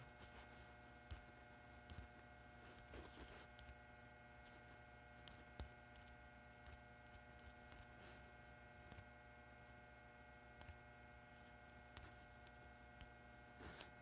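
Near silence over a faint steady electrical hum, with scattered faint ticks, typical of fingertip taps on a phone's touchscreen keyboard while typing.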